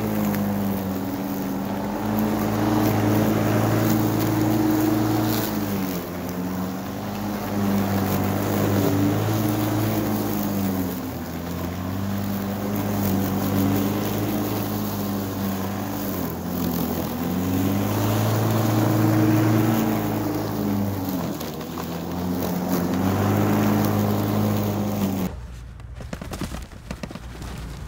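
Electric lawn mower running as it cuts grass, its motor hum dipping in pitch every few seconds as it loads up and then picks back up. Near the end the mower sound stops and gives way to quieter rustling and light knocks.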